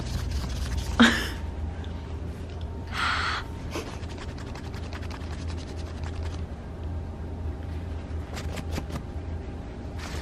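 Close handling noise on a camera being gripped with fingers over the lens and microphone: a steady run of small clicks and rubbing over a low rumble. There is one sharp louder sound about a second in and a brief breathy rush around three seconds.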